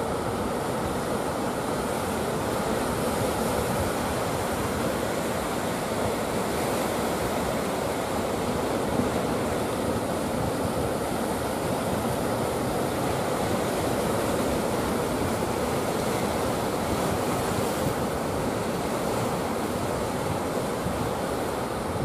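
Heavy ocean surf: big waves breaking and washing in, a steady rushing noise that never pauses.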